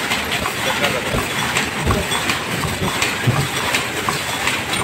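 High-speed paper cup forming machine running, a steady mechanical clatter of rapid clicks and knocks.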